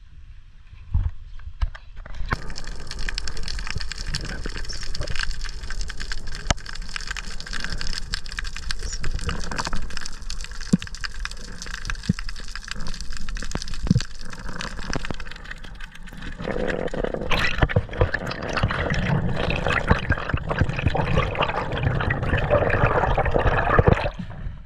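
Seawater heard around a camera at sea: a steady wash with scattered small clicks and knocks. About two-thirds of the way through it changes to louder, fuller splashing and lapping.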